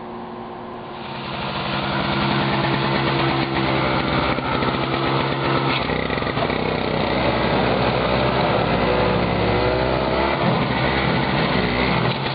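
Small gasoline engine of a snowblower running steadily, growing louder about a second in.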